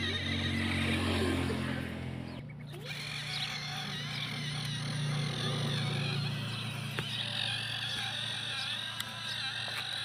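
Toy tractor's engine-like drone running steadily, its pitch changing abruptly about two and a half seconds in.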